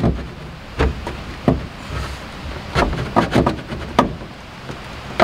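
Instrument cluster bezel in a 1972 Chevy C10 dash knocking and rattling as it is tugged and wiggled: a string of irregular sharp knocks. The bezel is stuck and not coming out.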